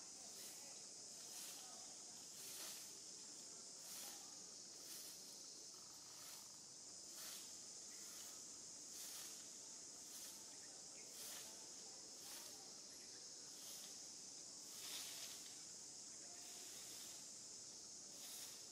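Faint, steady high-pitched insect buzz that swells about once a second.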